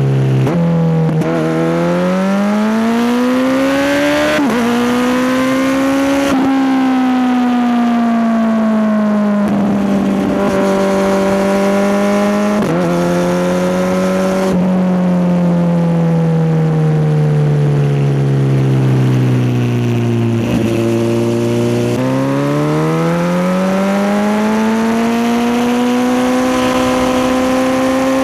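Kawasaki Z900's inline-four engine being ridden through several gears: its note climbs in pitch, dips briefly at each gear change, falls away slowly as the throttle eases in the middle, then climbs again near the end.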